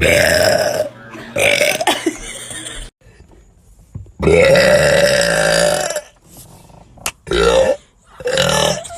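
A person burping loudly, about five burps one after another, the longest a drawn-out burp of nearly two seconds about four seconds in.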